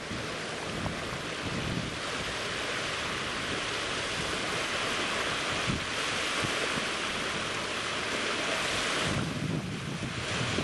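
Steady rush of water and waves with wind buffeting the microphone; low gusty buffeting picks up again near the end.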